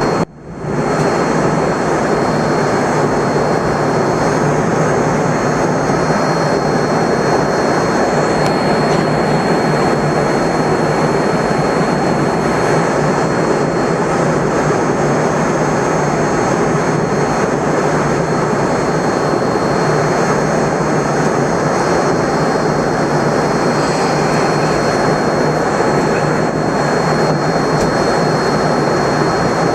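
Jet airliner cabin noise at cruising altitude: the steady roar of the engines and the air rushing past the fuselage, with a thin steady high whine.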